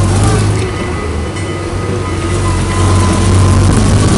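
Freshly overhauled petrol engine of a 1937 Leyland FTA3 fire engine running while it drives, a steady low drone with a faint whine over it, growing louder about three seconds in.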